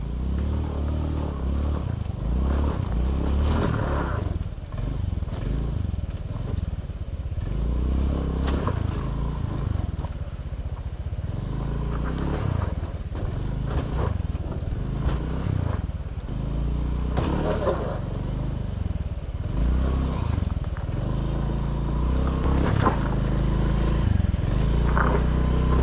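A small motor scooter's engine running and revving up and down as it is ridden over a rough track, with knocks and rattles from the bike jolting over the ground.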